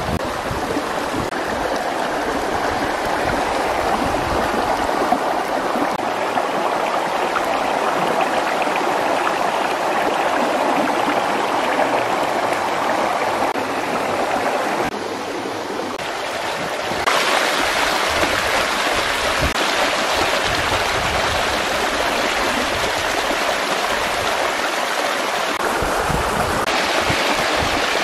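Stream water rushing over rocks: a steady rush of flowing water that dips briefly about halfway through, then comes back louder and brighter.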